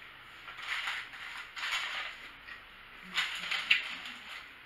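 Crunching and crackling from chewing and handling fried chicken, in three short bursts, the last with a couple of sharp clicks.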